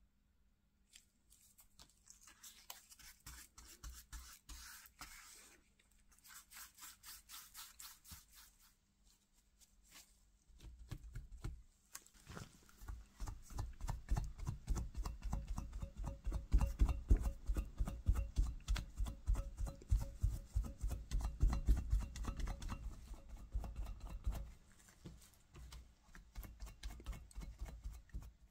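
Two-part grey filler being mixed with a wooden stick on a metal spreader plate, a run of quick rhythmic scraping strokes. Then the filler is worked onto cast iron wheel spokes with stronger, duller rubbing strokes, which stop a few seconds before the end.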